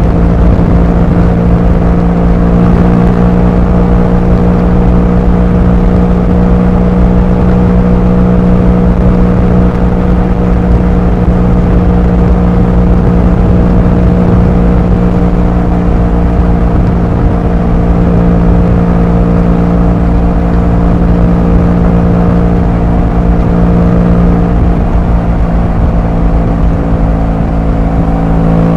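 Motorcycle engine and exhaust running at a steady road cruise, the engine note holding one even pitch.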